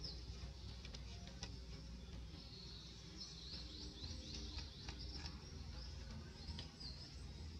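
Faint high-pitched bird chirps over a steady low background hum, with a quick run of chirps in the middle and a few faint ticks.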